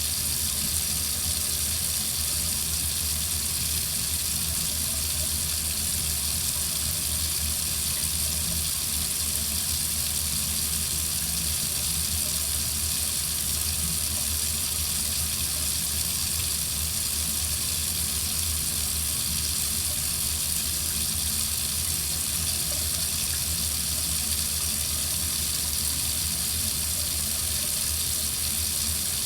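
Water running steadily from a faucet, an even hiss with no change.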